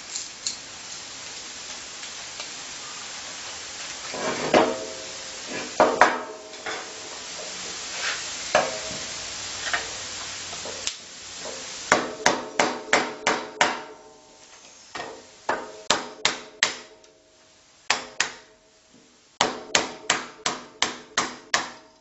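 Hammer blows on a wooden block driving a coil out of a microwave oven transformer's steel core: sharp knocks that ring briefly. A few come scattered at first, then from about halfway they fall in quick runs of about four a second.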